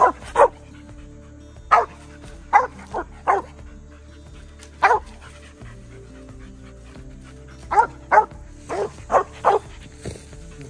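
Mountain cur barking treed at the base of a tree: about a dozen short, sharp barks in spaced clusters of two or three. It is the dog's tree bark, signalling that it has a squirrel treed.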